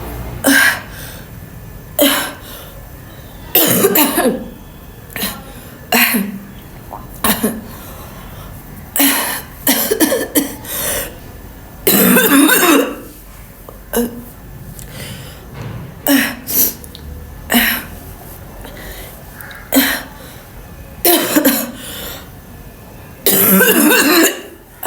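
A woman coughing over and over on purpose, one cough every second or two, with a few longer fits and some throat clearing. The forced coughing is straining her throat.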